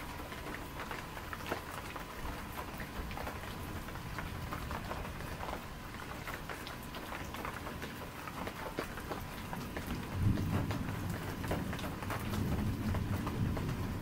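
Rain falling in a night thunderstorm, with many close drops pattering. About ten seconds in, a low rumble of distant thunder starts, and it swells again near the end.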